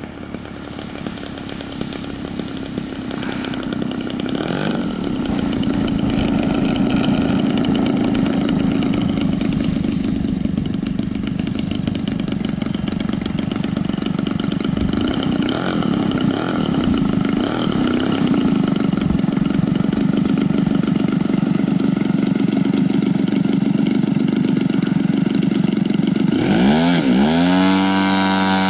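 Engine of a radio-controlled aerobatic model aircraft running at a steady high pitch through a 3D flying routine. Near the end the pitch swoops up and down several times in quick succession as the throttle is worked or the model passes close by.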